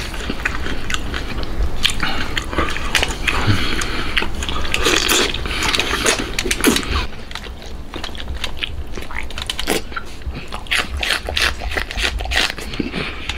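Close-up mouth sounds of a man eating braised pork intestines: wet sucking as a strip is drawn into the mouth, then chewing, with many short wet clicks and smacks.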